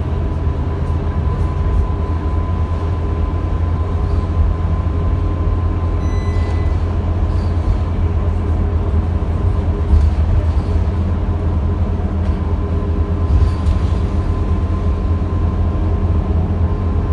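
Cabin noise of a Scania K230UB diesel city bus under way: a steady low engine and road rumble with a constant high whine running through it. A short electronic beep sounds about six seconds in.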